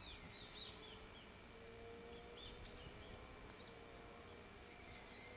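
Faint, brief high-pitched calls of small birds: a quick run of short arched chirps in the first second, then a few sharp rising notes in the middle and again near the end.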